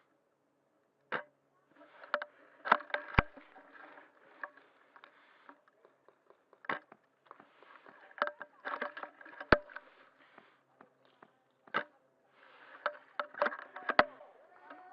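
Irregular clusters of crunching and sharp snapping clicks, a few every couple of seconds with short quiet gaps between: footsteps through dry ground cover.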